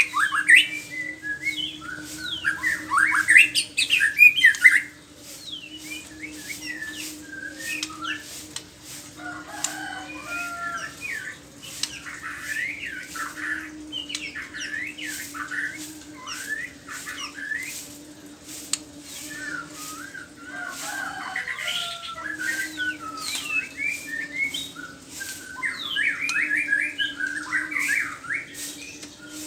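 White-rumped shama singing: bouts of quick varied whistles and chatter phrases, loudest in the first five seconds and then softer, with a steady low hum underneath.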